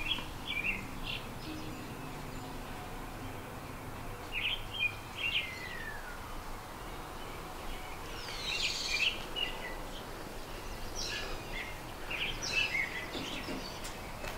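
Small birds chirping and calling in short scattered phrases, with one falling note and a busier burst of chirps about halfway through, over faint steady outdoor background noise.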